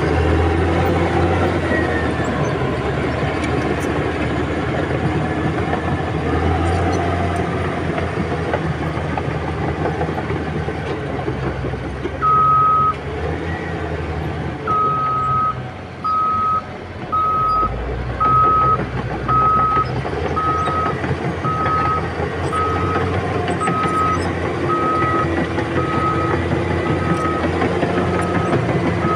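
Heavy diesel earthmoving machinery running, its engine note rising and falling. From about twelve seconds in, a reversing alarm sounds a single high beep roughly once a second, the signal of a machine backing up.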